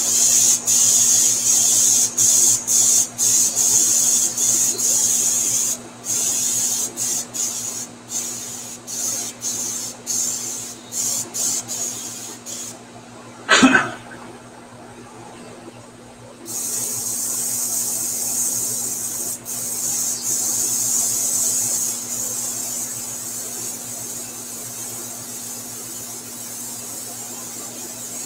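Airbrush hissing in short bursts as the trigger is pressed and released, with many quick stops and starts, then one long steady spray from about 16 seconds in. A brief loud knock about 14 seconds in, over a low steady hum.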